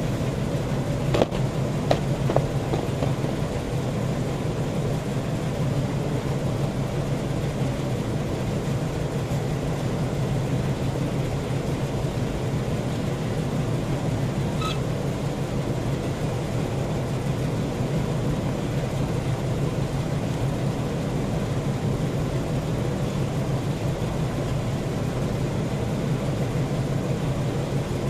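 A steady low mechanical hum, like a motor or engine running. A few light sharp clicks come about one and two seconds in.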